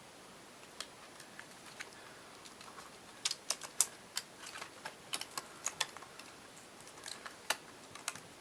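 Small sharp clicks and taps of batteries and a radio's battery assembly being handled and fitted, a few scattered at first, then coming thick from about three seconds in.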